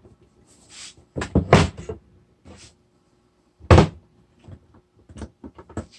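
A bead breaker working a small go-kart-style tire off its rim: a few heavy thunks, around a second and a half in and again just before four seconds, then a run of lighter clicks and knocks as the tool is worked. A faint hiss comes near the start.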